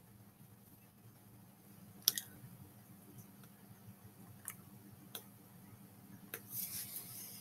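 Computer mouse clicking a few times: about five sharp single clicks spread out over quiet room tone, the loudest about two seconds in, with a soft rustle near the end.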